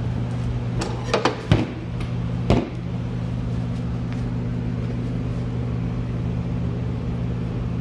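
Steady electric hum of a workshop heater running. Over it come several sharp metal knocks in the first three seconds, as a cut steel pipe is unclamped from a chop saw's vise and lifted out.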